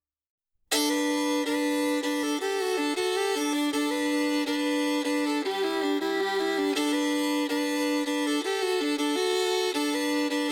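Digital silence for under a second, then a country song starts abruptly with a fiddle playing a stepping melody over steady accompaniment.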